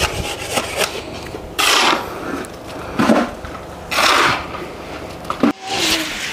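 A shovel scraping into a heap of sand, three loud strokes about a second apart over softer shuffling and rustling.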